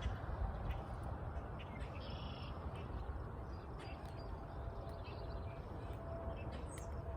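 Steady wind noise with a bird calling once, briefly, about two seconds in, and a few faint clicks.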